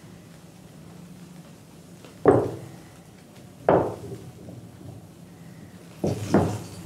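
Four knocks, each dying away over about half a second, spaced unevenly with the last two close together, over a faint steady low hum.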